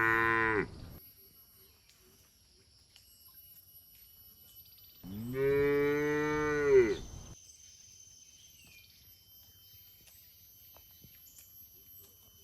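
Cattle mooing: the end of one long moo in the first second, then a second long moo of about two seconds near the middle, its pitch dropping as it ends.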